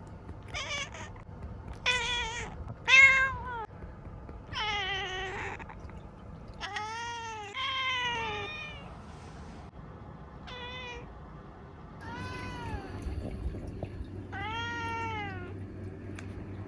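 Black domestic cat meowing repeatedly, about nine separate meows, each rising then falling in pitch.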